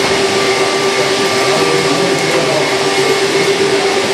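Steady whine from the hydraulic pump of a radio-controlled scale Liebherr 946 excavator as it slews and works its boom, one constant pitch over a machine hiss.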